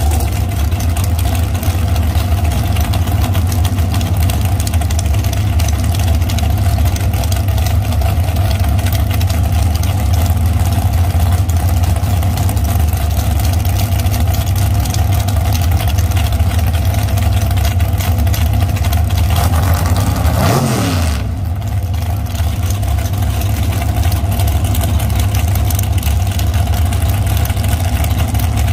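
Loud, steady rumble of drag-racing car engines running. About twenty seconds in, one engine's pitch sweeps quickly down and the sound briefly dips.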